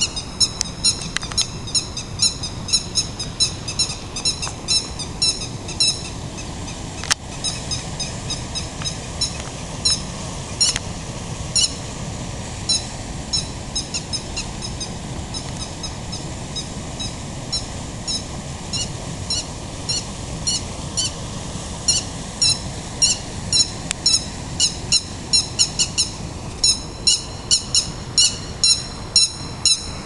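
High-pitched chirping calls repeating two to four times a second throughout, over a low steady rumble, with a single sharp click about seven seconds in.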